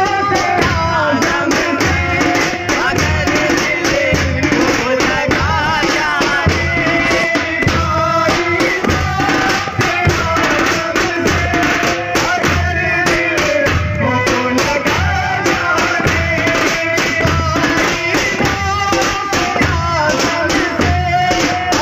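Group of daf frame drums beaten in a steady, driving rhythm, with singing over them.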